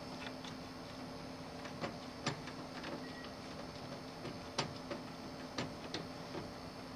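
Light, scattered clicks and taps of a hand working a DVI cable connector back onto a DLP television's circuit board, over a faint steady hum.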